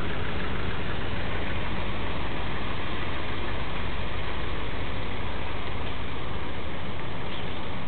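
1979 Dodge Li'l Red Express pickup's 360 V8 running steadily at low speed through its vertical exhaust stacks as the truck rolls slowly along.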